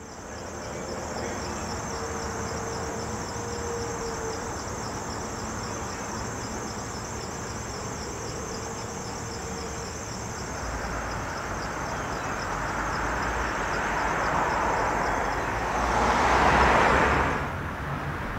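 Trackside outdoor ambience: a steady, high-pitched pulsing trill like insects runs throughout. A passing road vehicle swells in from about ten seconds in, is loudest near the end, then fades.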